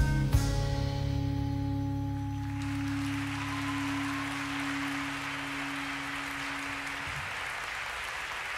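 A band's closing chord: a last drum hit, then a held low note ringing and fading away over several seconds. Audience applause starts about two and a half seconds in and keeps going.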